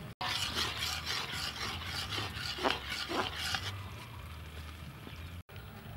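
Metal ladle stirring and scraping thick tomato sauce around a metal wok. The scraping is louder for the first three and a half seconds, with two sharper scrapes near the middle, then softer.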